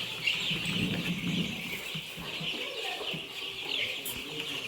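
A flock of three-week-old chicks peeping continuously, many overlapping high cheeps at once.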